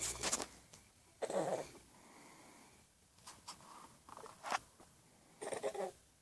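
A man snoring in short, irregular snorts, mixed with a baby's squeals, about five separate bursts of sound with quiet gaps between them.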